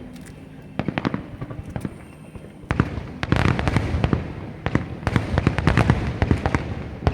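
Aerial fireworks bursting. A few scattered bangs come first, then from about three seconds in two dense volleys of booms and crackles with a rumble beneath.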